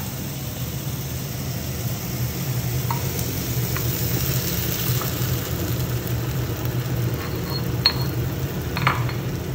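Sofrito sizzling in a frying pan as a wet picada of pounded almond, garlic, parsley and saffron is scraped in from a stone mortar, with a few light knocks of stone on the pan. A steady low hum runs underneath.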